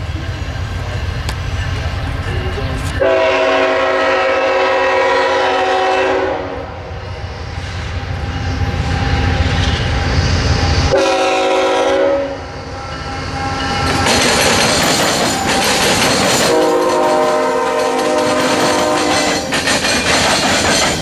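Norfolk Southern diesel locomotive air horn sounding three blasts as a coal train approaches a diamond crossing, the first and last long and the middle one shorter. From about two-thirds of the way in, the locomotives and coal hopper cars roll past with a loud clatter of steel wheels pounding across the diamond.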